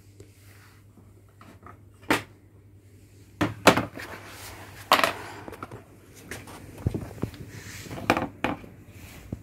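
A few sharp knocks and clatters of things being handled and set down on a workbench, over a low steady hum.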